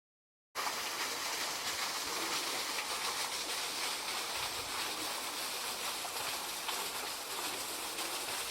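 Steady rushing of water from a valley stream, starting abruptly about half a second in.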